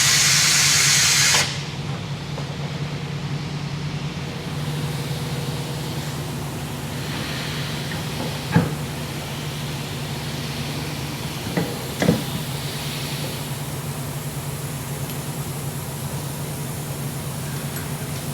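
A loud hiss that cuts off suddenly about a second and a half in, then a steady low machine hum in the tyre shop, with three sharp clicks, the last two close together.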